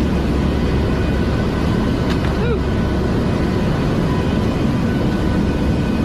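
Steady in-flight aircraft cabin noise: a constant engine and airflow drone with a faint steady tone running through it, and a brief short sound about two and a half seconds in.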